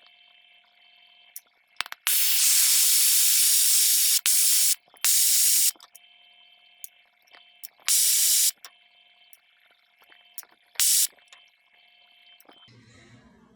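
A MAPP-gas hand torch blowing its flame in bursts to heat a silver-solder joint: five loud, even hisses that each start and stop abruptly. The first lasts about two seconds, the others under a second.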